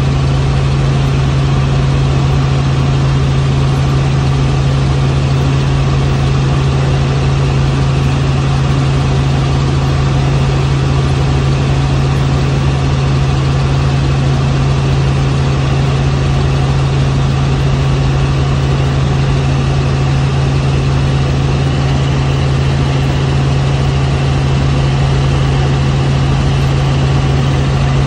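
Helicopter engine and rotor in steady flight, heard from aboard: a loud, even drone with a strong low hum that holds steady throughout.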